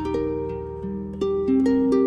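Background music: a melody of plucked string notes, about half a dozen in quick succession, each ringing on over a sustained low bass.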